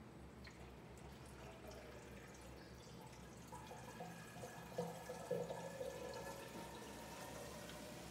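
Faint trickling and gurgling water in a Red Sea Reefer 450 reef aquarium's sump and drain plumbing, with a few louder gurgles about halfway through.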